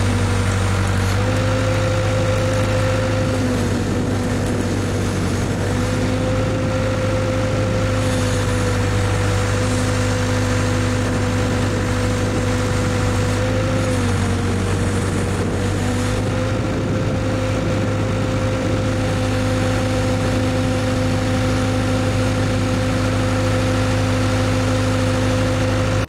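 Case backhoe's engine running steadily while the backhoe arm digs, swings and dumps dirt; its pitch shifts slightly a few times as the load changes.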